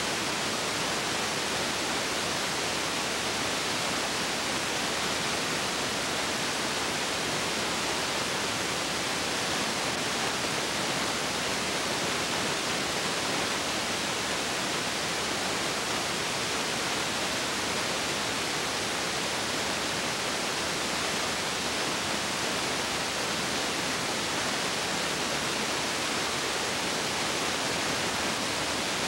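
Steady, even hiss with no other sound: the noise floor of a silent home-movie transfer.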